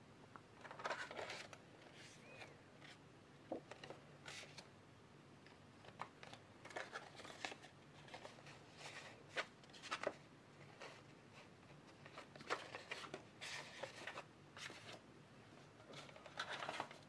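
Faint handling sounds: scattered rustles with light taps and clicks, coming in short bursts every second or two, as objects are picked up and moved about on a table.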